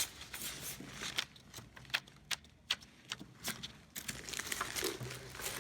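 Scattered small clicks and light rattles of hands handling the metal RC truck while fitting its battery.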